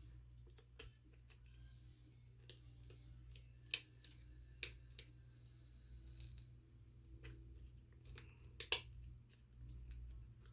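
Faint scattered clicks and short scrapes of plastic pry cards being worked under a MacBook Air battery to break its strong adhesive, with a sharper click near the end.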